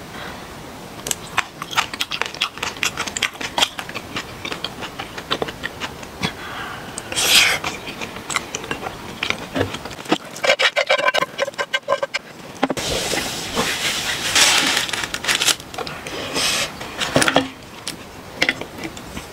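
Tableware handling: many short clicks and scrapes of a wooden spoon and chopsticks against a frying pan and a glass bowl as noodles are served out, with a few longer rustles about seven seconds in and again past the middle.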